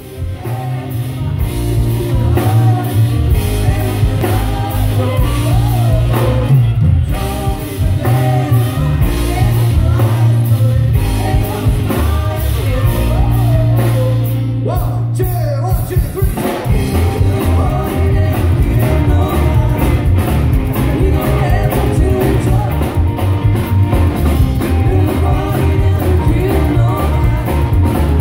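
Rockabilly band playing live: singing over an upright double bass, electric guitar, saxophone and drums, with a strong, steady bass line and beat.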